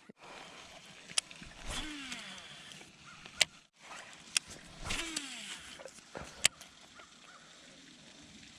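Baitcasting reel spool whirring and dropping in pitch as it slows, twice, with several sharp clicks of the reel in between.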